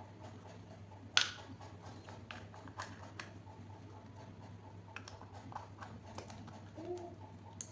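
Small plastic toy kitchen pieces clicking and tapping as they are handled, a scattering of light clicks with one sharper click about a second in.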